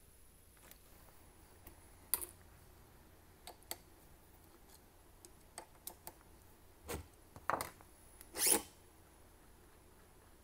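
Hands handling the CNC's router and tooling: scattered light clicks, with a few louder brief scrapes in the second half, over quiet room hiss.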